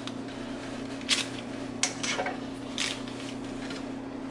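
About four short clinks and scrapes of a utensil against a nonstick frying pan as butter is put in, over a steady low hum.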